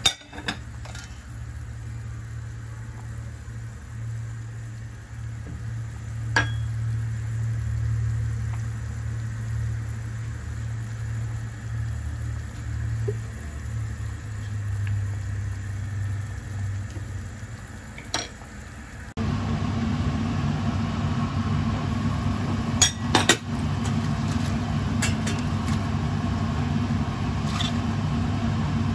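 A steady low hum with a ladle and utensils clinking now and then against a clay cooking pot. About 19 seconds in, the hum jumps louder and fuller.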